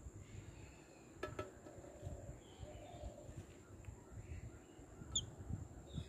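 Faint garden ambience with a steady high insect drone, two soft sharp taps about a second in, and a single short, bright bird chirp near the end.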